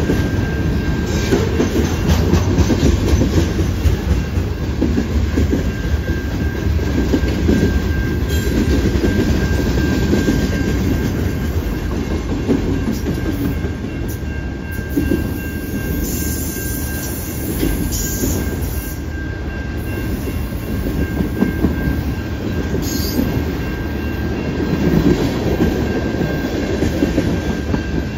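Freight cars of a long mixed freight train rolling steadily past: a continuous low rumble of steel wheels on rail, with rapid clatter as the wheels cross the rail joints.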